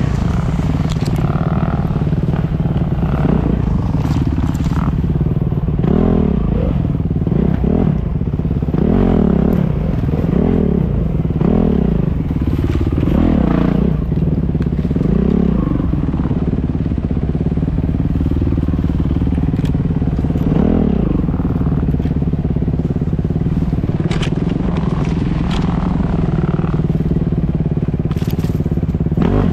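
Dirt bike engine heard close up on a helmet-mounted camera while riding a wooded trail, revving up and falling back again and again over a steady rumble. A few sharp clicks come near the end.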